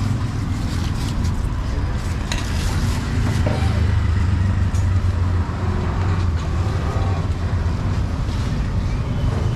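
A steady low engine hum, with a busy street din, faint voices and occasional clatter over it.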